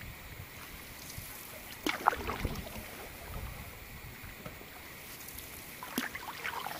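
Single-bladed paddle strokes in water from a solo canoeist in an aluminium canoe: quiet dipping and swishing, with a sharp knock about two seconds in and a smaller one near six seconds.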